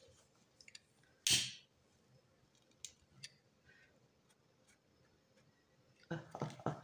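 Faint clicks of a hand lighter and the handling of a crocheted yarn toy while its fuzz is singed, with one short, loud burst of noise about a second in. A brief voice near the end.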